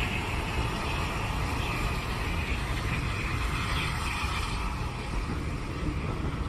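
Railway passenger coaches rolling past below, their wheels making a steady rumble on the track.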